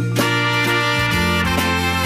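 Instrumental Latin/beat light music from a 1960s-style dance-band LP: held chords over a steady drum beat.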